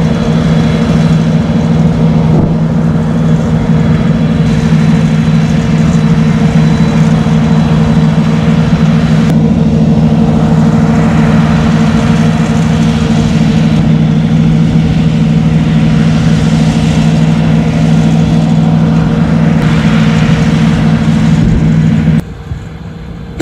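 Engine of a multiple rocket launcher truck running steadily at close range, a loud even hum with no revving, that cuts off suddenly near the end.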